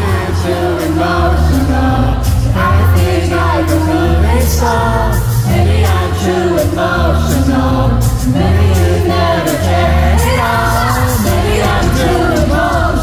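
Live pop-rock band with a woman singing lead into a handheld microphone, heard from within the arena crowd, the bass heavy and booming.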